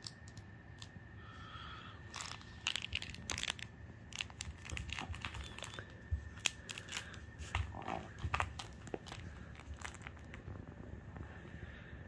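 Lhasa Apso puppy biting, chewing and tugging at a plush toy, in a run of irregular short rustles and clicks that is busiest in the middle.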